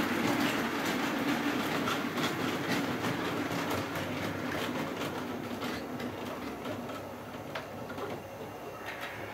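Model trains running on the layout's track: a steady rumble of wheels and motors with a stream of light clicks as the wheels cross rail joints, getting gradually quieter from about halfway through.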